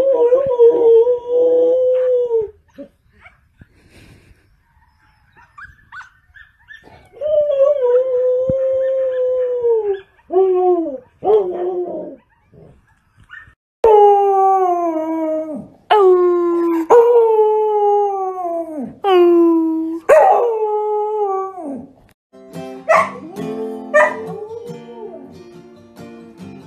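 A Samoyed howling: a string of long howls, most sliding down in pitch as each one ends. Near the end this gives way to an acoustic guitar being strummed, with a man singing.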